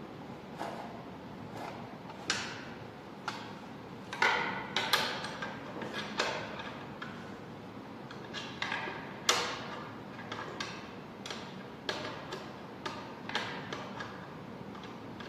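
Hand ratchet on the oil pan bolts: irregular metallic clicks and clinks, some ringing briefly, with the loudest a few seconds in and again past the middle. The bolts are only being snugged down, not tightened hard, so the oil pan gasket does not tear.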